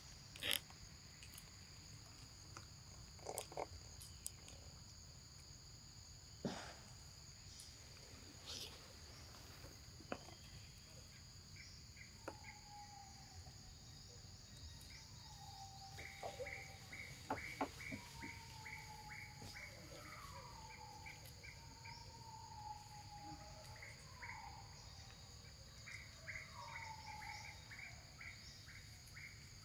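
Steady insect chorus of two constant high buzzing tones, with a few faint clicks. In the second half a bird gives short falling whistles among runs of quick ticks.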